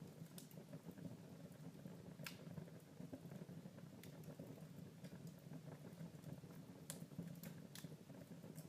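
Wood fire crackling quietly in a fireplace: a low steady rustle with scattered sharp pops and snaps, the sharpest about two seconds in.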